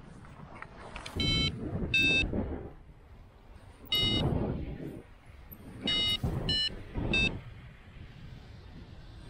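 Paragliding variometer beeping in about six short, unevenly spaced beeps, the sign of the glider climbing after takeoff. Wind rushes on the microphone underneath.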